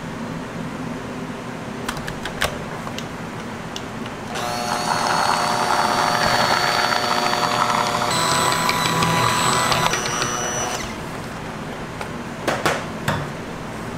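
Hand-held immersion blender running in a bowl of melted chocolate and butter for about six seconds, a steady motor whine that shifts in pitch partway through.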